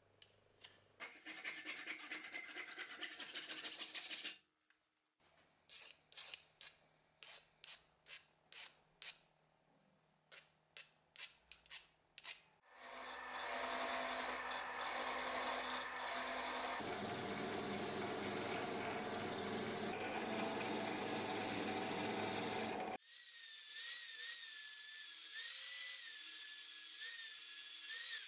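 Several workshop tools in turn: first a scraping passage and then about fifteen separate rasp strokes on the wooden hammer handle, roughly two a second. Then a wire wheel brush spinning in a drill press against the rusty hammer head, and about five seconds from the end an angle grinder starts running with a wavering whine.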